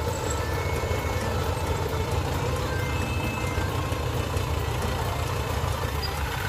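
A heavy machine's engine running steadily, its low sound even and unchanging.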